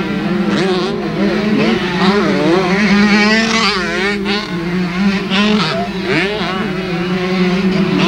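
Two-stroke 125cc motocross bikes revving, their pitch rising and falling again and again as they labour through heavy mud, over a steady low hum.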